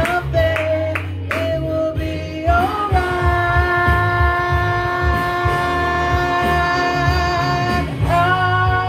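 A song playing, with a singer holding a long note for several seconds, breaking briefly, then holding another, over a steady bass beat.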